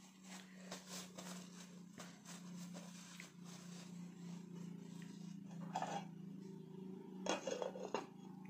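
Paper tissue rustling as it is pressed to the mouth, then a few sharp clinks near the end as the glass lid of the electric cooking pot is handled and set down, over a steady low hum.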